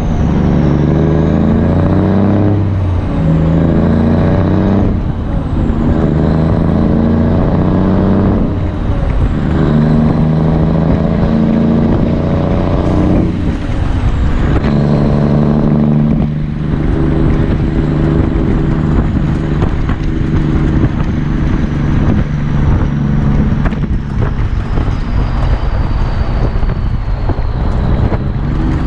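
Straight-piped Cummins NTC 240 small-cam diesel, an 855 cubic-inch inline six, pulling a truck through the gears of its 10-speed transmission. The engine note breaks briefly at each shift, about five times in the first sixteen seconds, then runs steady.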